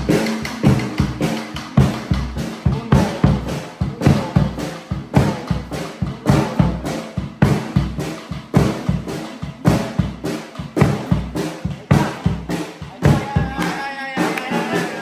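Bass drum beaten with a mallet in a steady cumbia rhythm, with an acoustic guitar playing along.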